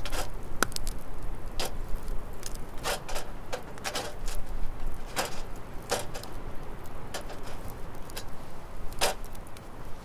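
Wood fire crackling under a wire grill, with irregular sharp pops and snaps scattered through, while burger buns are moved about on the grill mesh.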